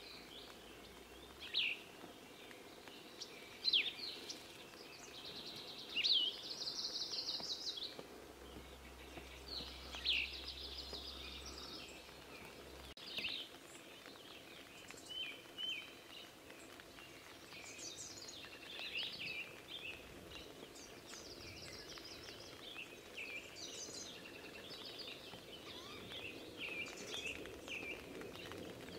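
Small songbirds chirping and calling: many short, sharp and sweeping notes, with a couple of brief trills.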